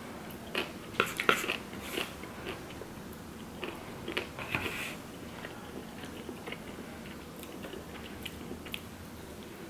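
A person chewing food close to the microphone, with a few soft clicks and small mouth sounds in the first five seconds, then fainter chewing.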